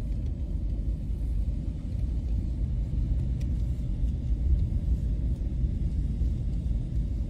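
Car driving slowly, a steady low rumble of engine and tyres heard from inside the cabin.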